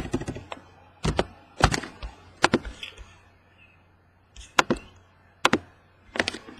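Computer keyboard keys typed in short clusters of a few sharp clicks, with pauses of about a second between them.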